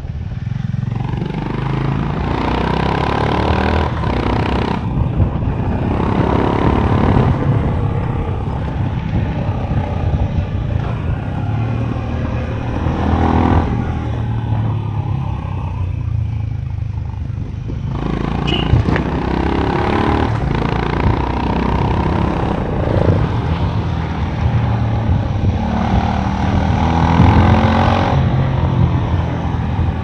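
Honda CB350 H'ness single-cylinder engine heard through its stock exhaust while the bike is ridden. The beat rises and falls with the throttle, dropping briefly a couple of times and easing off for a few seconds near the middle before pulling again.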